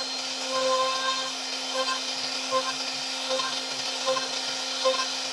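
CNC router spindle carving a relief pattern into a wooden panel: a steady spindle whine over the hiss of the bit cutting wood, with a brief higher tone coming back about every three-quarters of a second.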